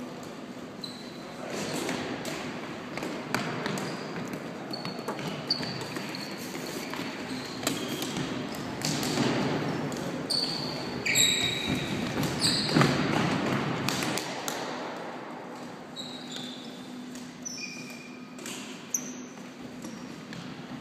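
Floorball play in a reverberant sports hall: trainers squeaking on the court floor and plastic sticks clacking against the ball and each other, with running footsteps. The play gets busier and louder around the middle.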